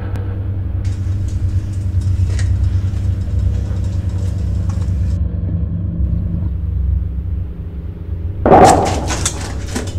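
Low, steady rumbling drone, with a hiss layered over it for the first few seconds and one loud, sudden noisy hit about eight and a half seconds in.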